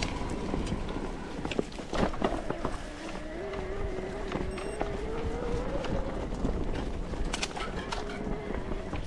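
Electric-assist mountain bike ridden over a rough trail: scattered clicks and rattles with a steady low rumble of wind on the microphone, and a single whine that wavers and slowly rises through the middle seconds.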